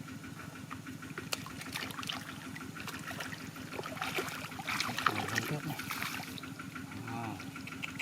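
Shallow water splashing and trickling, busiest about halfway through, over the steady hum of a small engine running.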